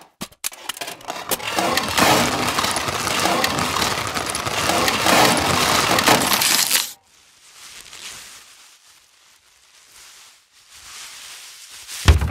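A dense clatter of many bottles tumbling and piling up, lasting about seven seconds before dropping to a faint rustle. A sudden low thud near the end.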